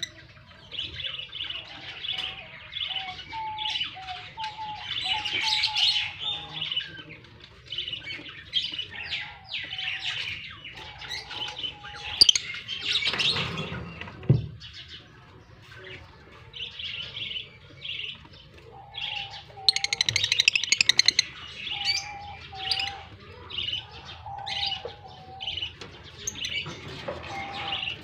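Lovebirds chattering with many rapid, high-pitched chirps overlapping one another, with a brief louder rustle about halfway through.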